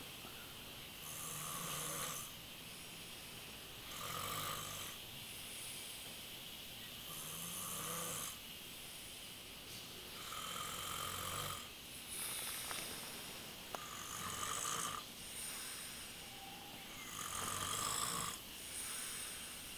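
A man snoring really loud in his sleep, one snore on each breath about every three seconds, six in all.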